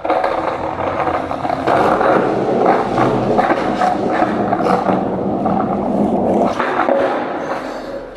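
Skateboard wheels rolling over wet, rough pavement: a loud continuous rumble with scattered clicks from the surface, fading away near the end.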